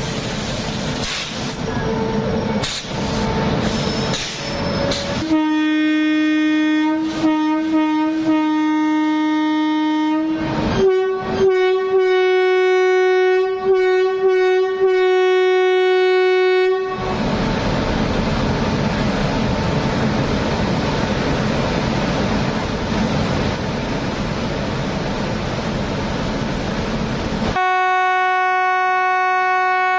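Indian Railways WAP-7 electric locomotive's horn blaring as the express departs. It sounds in long blasts broken by short gaps, first on a lower note and then a higher one, and the higher note comes back near the end. Between the blasts the train runs with a steady rumble and some wheel clatter.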